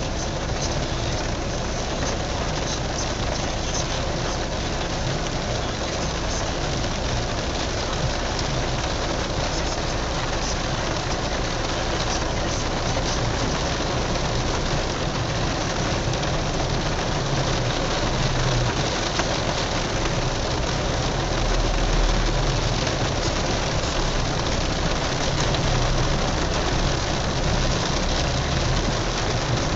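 Heavy rain falling on a car's roof and windscreen, heard from inside the cabin, over the low sound of the car driving through standing floodwater. A low rumble swells about two thirds of the way through.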